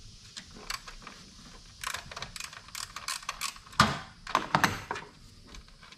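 Hand ratchet clicking in short runs as a 10 mm bolt is backed out, with two sharp knocks about four seconds in.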